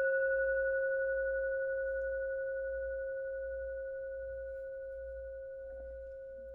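A single singing-bowl-like tone ringing out after one strike and slowly fading, with a slight waver in its level.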